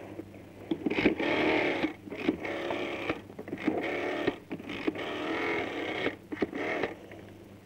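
Rotary telephone dial being turned and whirring back, several times in a row with short pauses between, as a number is dialed.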